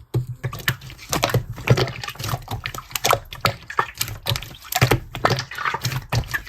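Slime being squished and poked by hand, giving quick irregular wet clicks and pops, several a second.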